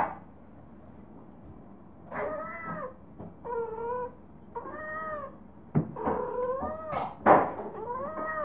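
Female cat in heat yowling: after a short quiet start, a string of drawn-out meows, each rising then falling in pitch. Two short, harsher cries about seven seconds in are the loudest.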